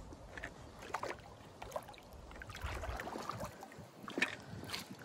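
Shallow creek water splashing and sloshing in short, scattered bursts while a hooked brown trout is worked to the net, with a couple of sharper splashes about four seconds in.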